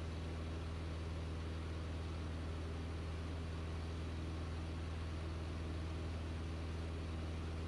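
Light aircraft's piston engine and propeller droning steadily in flight, a deep even hum with a constant hiss of airflow over it.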